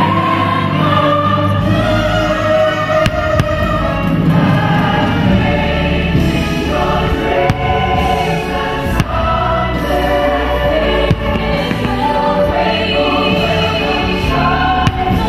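A fireworks-show soundtrack of orchestral music with a choir singing held notes, cut through by several sharp bangs of aerial firework shells bursting.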